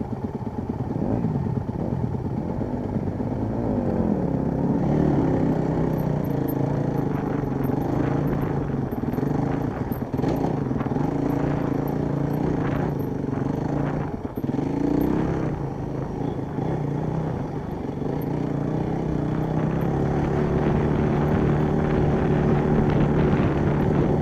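Dirt bike engine being ridden along a bumpy trail, its pitch rising and falling as the throttle is opened and closed, with a few knocks from the bike over rough ground.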